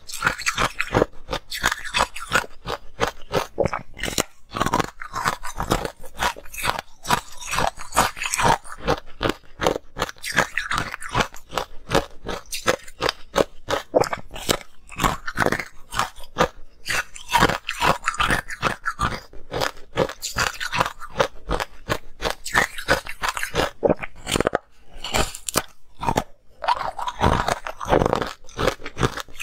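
Person biting and chewing a slab of green-powder-coated ice, a dense run of sharp crunches and cracks with short pauses between mouthfuls.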